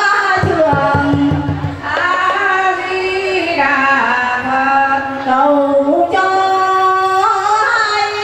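A woman singing a slow devotional chant into a microphone, holding long notes that slide from one pitch to the next. A brief run of low thumps comes about half a second in.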